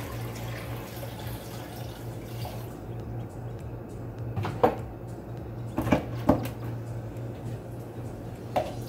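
Water poured from a plastic pitcher into a blender jar of chopped beetroot and carrot, for about the first three seconds. Then a few sharp knocks as things are handled and set down, over a steady low hum.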